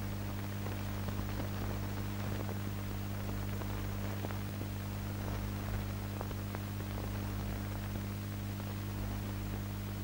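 Noise of an old film soundtrack transfer with no music or speech: a steady low hum under a constant hiss, with faint scattered crackle and ticks.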